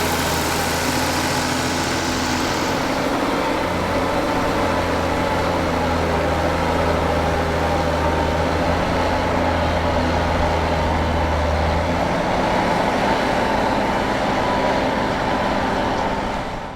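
Ford TW-25 tractor's turbocharged six-cylinder diesel running steadily under load while ploughing. The low engine note drops away about twelve seconds in, and the sound fades out at the very end.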